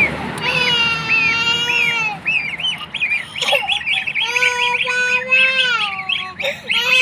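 Goose goslings peeping, many quick rising-and-falling chirps, with longer held calls sounding under them.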